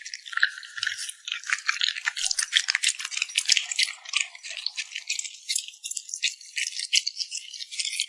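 A puppy eating close to the microphone: a fast, uneven run of wet clicks from chewing and lip smacking.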